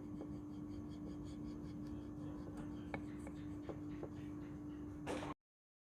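Knife blade being stroked across a fine natural whetstone (Yudhistira Pacitan stone, 7,000–8,000 grit), soft scraping strokes with a few light clicks, over a steady low hum. The sound cuts off abruptly just after five seconds in.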